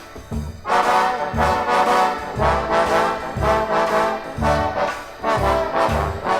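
Big-band jazz from a 1960 film-and-TV score recording: a brass section of trombones and trumpets plays full chords over low bass notes that swell about once a second.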